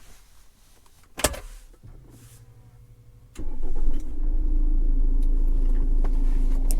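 2015 Jeep Cherokee's engine being started from inside the cabin: a click about a second in, a short quieter hum, then the engine catches about three and a half seconds in and settles into a steady idle.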